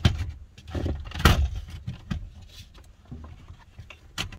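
Several sharp knocks and clatters, the loudest about a second in, over a low rumble, growing sparser near the end.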